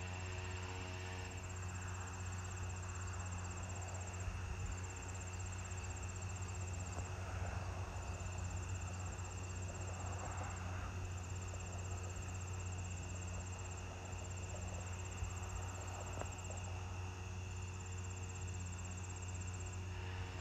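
Crickets trilling at a high pitch in long runs of a few seconds each with short breaks, over a steady low hum.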